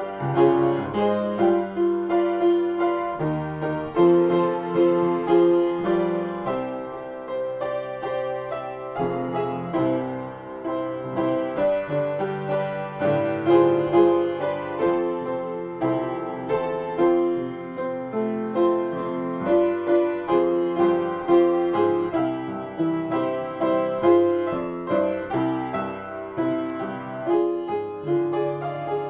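Upright piano played solo in a free improvisation, with notes and chords struck in a steady flow and left to ring.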